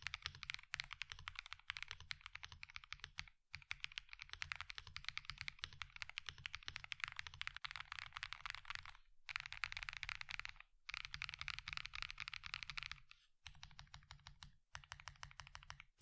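Mechanical keyboard with stock, out-of-the-box Akko Botany light linear switches being typed on fast: a steady stream of keystroke clacks broken by a few short pauses.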